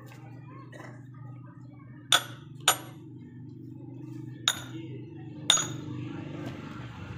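Axe chopping firewood on a log: four sharp blows with a metallic ring, two close together about two seconds in, then two more about a second apart, over a steady low hum.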